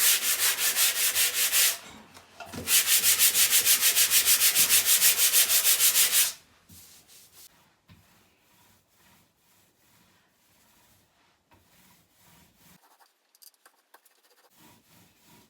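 Sandpaper scrubbing back and forth over dried joint compound on a wall, in fast, even strokes, to smooth out rough spots. It comes in two bursts: a short one, then after a brief pause a longer one of about seven strokes a second, after which the rubbing stops.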